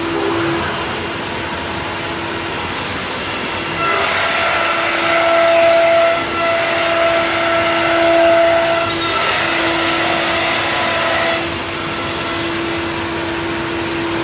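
C.R. Onsrud CNC router running with a steady mechanical whine. From about 4 seconds in to about 11 seconds in it grows louder and rougher, with added higher tones, then drops back to the steady whine.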